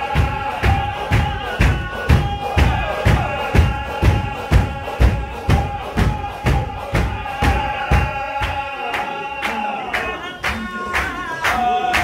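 A group of men chanting zikr in unison, holding a long sung note, over rhythmic stamping and clapping of about two and a half beats a second. Near the end the beat drops away and the chant settles onto a lower note.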